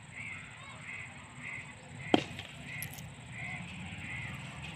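A cricket bat striking the ball once, a sharp crack about two seconds in. A bird calls over and over in the background, short repeated calls.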